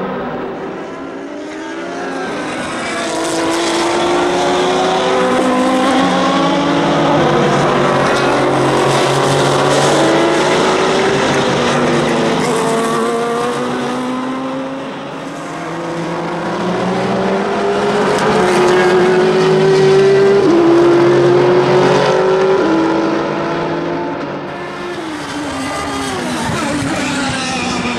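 Endurance race cars running at full throttle, several engine notes overlapping. The pitch climbs and then drops back with each upshift, swelling as cars come past and fading between them.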